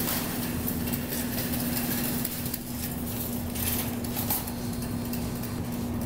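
Steady electrical hum and machine noise at a claw machine, with a few light clicks about midway as its bill acceptor is tried with a $5 bill, which it will not take.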